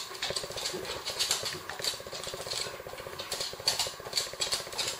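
Dog sniffing rapidly at sample cups in a scent box, a quick even run of sniffs, with short crisp ticks of its claws on the wooden floor as it moves along.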